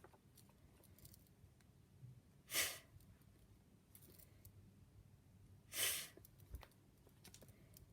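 A woman's voice makes two short breathy 'fff' hisses about three seconds apart, the 'ph' sound said on its own as a phonics drill, over a quiet room hum.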